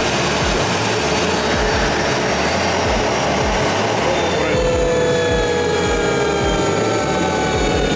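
Turbofan jet engine of a Boeing 737 test-bed airplane running at idle with a steady roar during an idle leak check. From about halfway in, a whine slowly falls in pitch over it.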